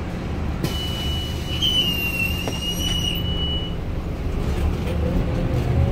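City bus running, heard from inside the passenger cabin: a steady low rumble of engine and road noise. About a second in, a high thin whine sets in and holds for about three seconds before stopping.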